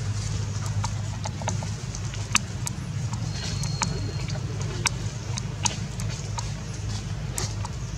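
Sharp, scattered crackles of dry leaves under a baby monkey moving about on the leaf litter, over a steady low hum. A brief high whistle sounds a little past the middle.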